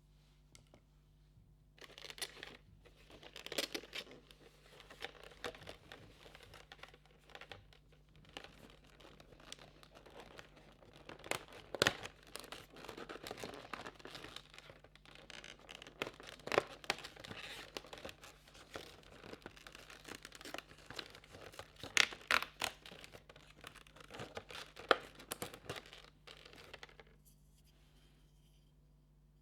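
Cardboard advent calendar compartments and small product packaging being torn open and crinkled by hand: irregular tearing and crackling with several sharp snaps. It starts about two seconds in and stops a couple of seconds before the end.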